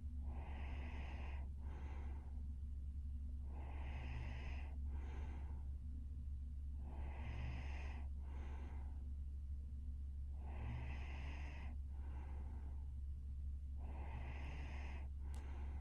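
A sleeping young woman's heavy, snoring breathing. Five breath cycles, each a longer noisy breath followed at once by a short one, come about every three and a half seconds over a steady low hum.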